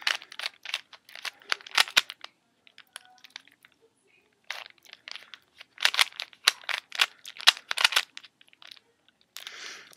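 Plastic layers of a Rubik's Cube being turned quickly: rapid runs of clicks and clacks, with a pause of about two seconds in the middle.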